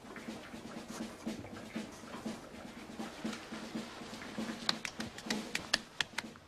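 Soft percussion beat, a low thump about twice a second, with a quick run of about eight sharp taps near the end.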